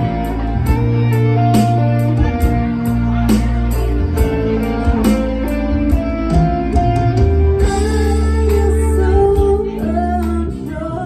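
Live band playing an instrumental passage with guitar over bass and a steady drum beat; a singer's voice comes in near the end.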